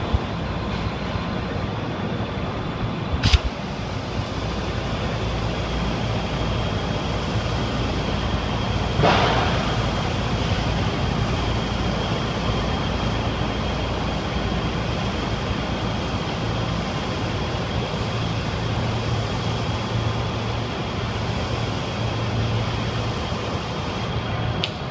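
Pressure washer spraying a painted concrete-block wall: a steady hiss of the jet over a low, even hum. There is a sharp click about three seconds in, and a brief louder rush of spray about nine seconds in.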